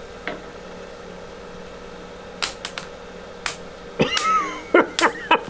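Wood lathe running with a steady hum while a roughing gouge meets the spinning plastic Rubik's Cube. Sharp clacks start about two and a half seconds in, and a run of loud cracks and short high squeals fills the last second and a half.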